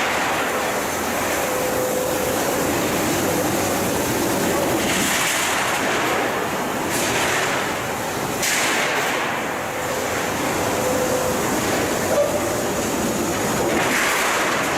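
A 1986 KOHAN steel-coil cut-to-length line running: a steady industrial machinery rumble, with a hissing swell every three to five seconds.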